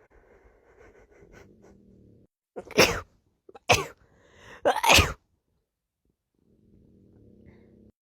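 A person sneezing three times in quick succession, about a second apart, the last sneeze preceded by a short audible intake of breath.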